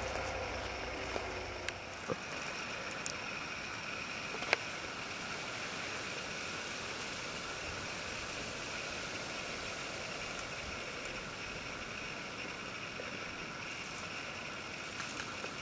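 Steady, faint outdoor background hiss of a forest, with a few light clicks in the first few seconds.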